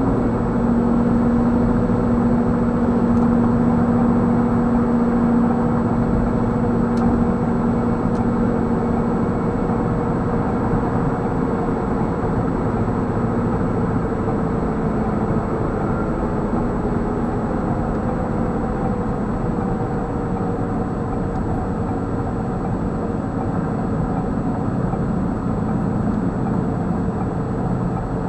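Steady road, tyre and engine noise heard inside a car's cabin while driving at highway speed. A low hum runs under it and fades about a third of the way through.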